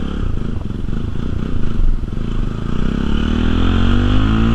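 Motorcycle engine running under way while being ridden, its pitch rising toward the end as the bike speeds up.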